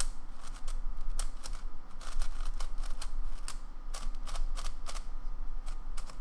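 Bochuang GT 5x5 speed cube being turned by hand: a quick, irregular run of plastic clicks and clacks as the layers turn. Fresh out of the box, it is very tight with lots of catching, in the owner's judgement.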